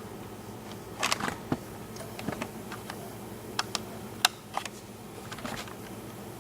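Irregular small clicks and taps of small hard objects being handled, about seven of them spread unevenly over a few seconds.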